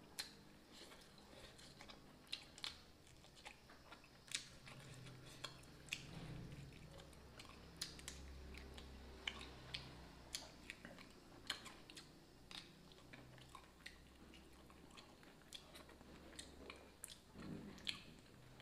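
Faint, close-up chewing of a mouthful of rice, fish and chili, with soft irregular mouth clicks and smacks about once or twice a second.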